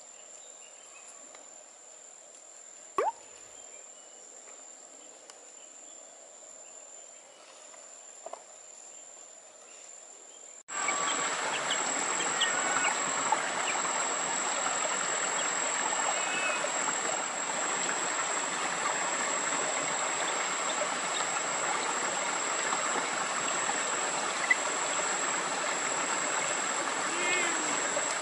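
Outdoor countryside ambience: a steady high-pitched insect drone over a dense hiss. It is faint for about the first ten seconds, then jumps much louder at a cut.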